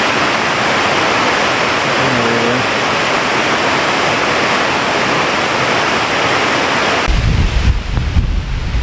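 Steady rush of a small waterfall running full after heavy overnight rain. About seven seconds in it cuts abruptly to wind buffeting the microphone in low, gusting rumbles.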